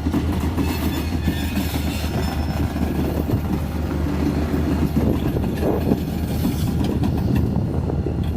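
Freight train rolling slowly, a steady low rumble of cars on the rails with no sharp wheel squeal.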